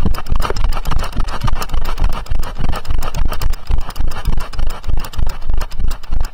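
A horse's hoofbeats on a dirt path, heard from the saddle: a loud, steady thumping rhythm of about three beats a second, with the jolt of each stride.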